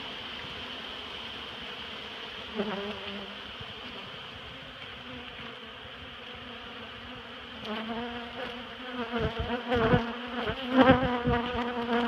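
A mass of honeybees humming steadily. Individual bees buzz loudly close by about two and a half seconds in, and again over the last four seconds, with a few thumps among them.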